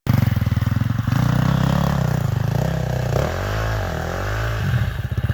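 Dirt bike engine running steadily, its revs rising and falling once about three seconds in.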